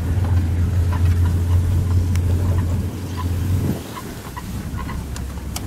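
Safari vehicle's engine running with a steady low drone, which drops away about three and a half seconds in.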